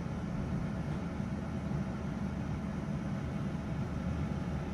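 Philips Essential XL 6.2 L air fryer running, its fan making a steady, low whir with a few faint steady tones above it.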